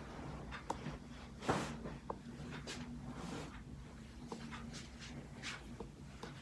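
Joints cracking during a chiropractic spinal adjustment: a scatter of faint clicks and pops, the loudest about a second and a half in.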